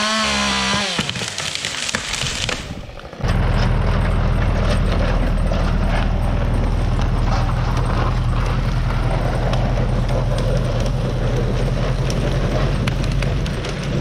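John Deere 1640 tractor's diesel engine running steadily under load from about three seconds in, over the rustle and scrape of a cedar tree being dragged across snowy ground. A brief wavering pitched engine sound comes first.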